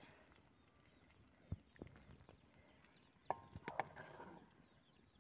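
Faint knocks of a wooden spatula against an iron karahi while fried cauliflower florets are lifted out of the oil: a dull knock about a second and a half in, then a few sharper taps a little past three seconds that make the pan ring briefly.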